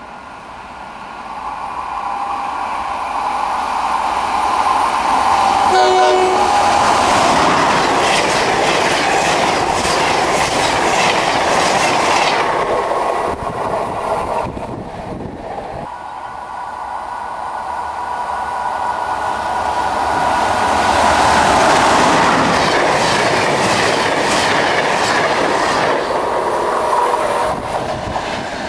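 Amtrak train hauled by an AEM7 electric locomotive passing at about 90 mph: a loud rush of wheels and air, with a short horn toot about six seconds in. The noise dips, then builds to a second loud peak about twenty seconds in with wheels clattering over the rails, and eases near the end.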